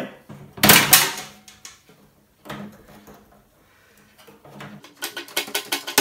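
Metal clatter and clicks from hands and pliers working on a stripped microwave's sheet-metal chassis and wiring: one loud clatter about a second in, then a quick run of sharp clicks near the end.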